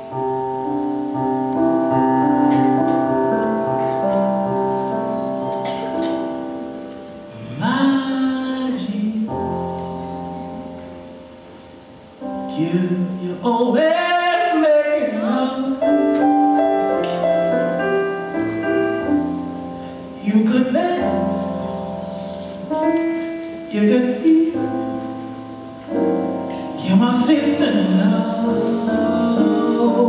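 A small jazz band playing live: sustained keyboard chords, with a singer's voice coming in over them in phrases, first about eight seconds in and again for longer stretches later on.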